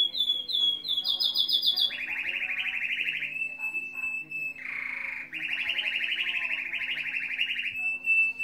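Domestic canary singing: a long, continuous song of fast rolling trills, broken by held whistled notes, with a few higher falling chirps near the start.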